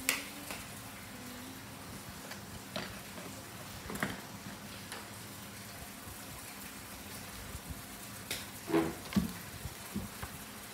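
Pencils working on paper on a tabletop: a steady soft hiss with scattered light taps and clicks. The loudest taps come in a short cluster about nine seconds in.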